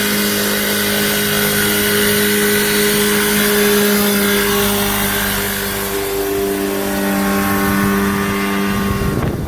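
Ultralight aircraft's small engine and propeller running at steady power, a loud even drone with only a slight dip in pitch around the middle.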